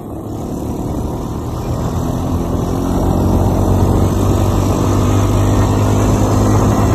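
ATV engine running as the quad rides along a snow-packed road, getting louder over the first few seconds as it speeds up and then holding a steady hum.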